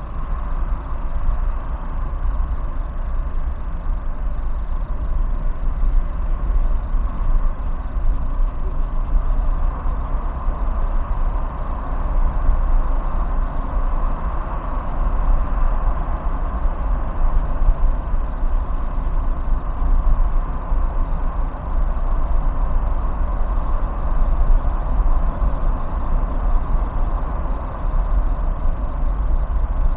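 Steady road and engine noise inside a moving car's cabin at highway speed, a continuous low rumble with no distinct events.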